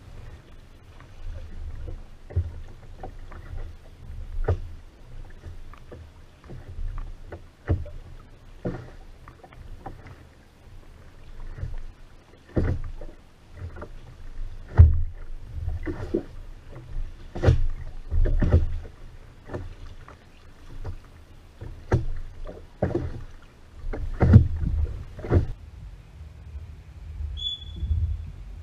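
Rowing a Venetian boat: oars knocking in their wooden oarlocks and working the water in an uneven stroke pattern, over a low rumble. The knocks are sharpest and most frequent in the second half.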